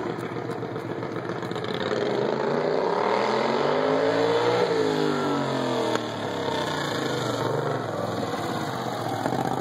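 Racing lawn mower's overhead-valve V-twin engine running hard as the mower drives up the road. Its pitch climbs to a peak about halfway through, then falls back.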